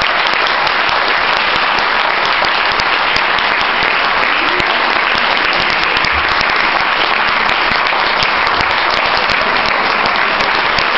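An audience applauding steadily, many people clapping at once.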